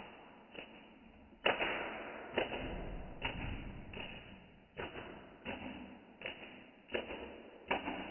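A person's footsteps at a steady walking pace, about ten steps, each a sudden scuff that trails off.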